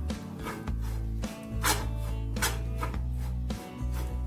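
Metal spoon scraping and stirring spice powders and grated coconut as they dry-roast in a pan, in repeated strokes about every half second to second. Background music with a steady bass line plays under it.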